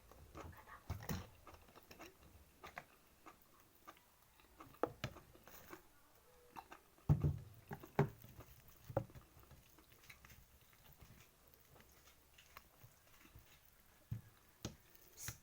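Close-up eating sounds: a person chewing and smacking with the mouth, with scattered small clicks and soft thuds, louder about seven to nine seconds in.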